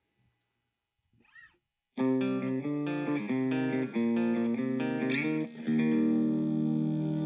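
After about two seconds of near silence, an SG-style electric guitar comes in picking a riff of single notes, changing every fraction of a second. Near the end it lets a chord ring on.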